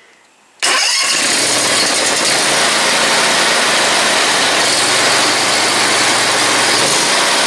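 Grasshopper 126 mower's engine starting on choke with a little throttle: it catches suddenly about half a second in and runs on loud and steady. The cooling shroud is off, leaving the flywheel fan and cylinder fins bare.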